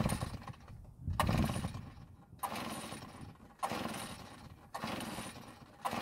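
Recoil starter of a Redmax EBZ8500 backpack blower's two-stroke engine pulled six times, about once every second and a bit, cranking the engine over for a compression test with a gauge in place of the spark plug. Each pull starts sharply and fades, and the engine does not fire.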